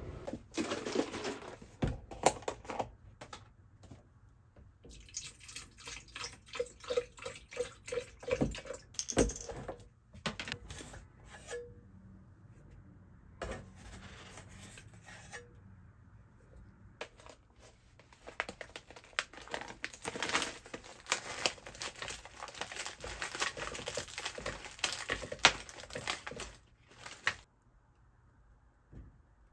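Kitchen handling sounds while making a smoothie: a scoop scraping and clicking in a powder tin, packaging rustling and liquid poured into a plastic blender jar, as a busy run of short clicks and rustles with a few brief pauses.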